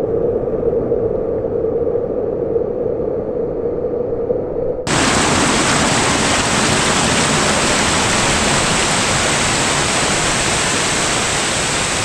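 Waterfall and creek rushing over rocks and logs in a steady roar. For about the first five seconds it sounds muffled and dull, then it switches abruptly to a bright, full hiss of falling water.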